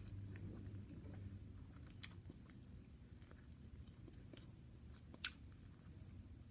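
Faint close-up chewing of a soft tortilla wrap, with a few small sharp mouth clicks, the clearest about two seconds in and just past five seconds.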